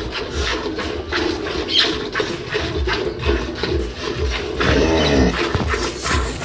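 Cow being milked by hand: jets of milk squirting into a steel bucket in an even rhythm, about two to three strokes a second. A short falling animal call sounds about five seconds in.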